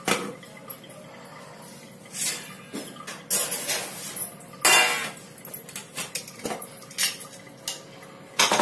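Metal cookware clinking and clattering as a pressure cooker, its lid, a ladle and a steel bowl are handled: a string of separate knocks and clinks at uneven intervals, the loudest a clang about five seconds in.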